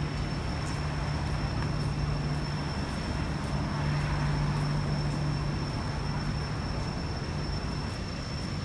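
City street traffic: car engines and tyre noise, with a steady low hum that swells about four seconds in as a car passes close.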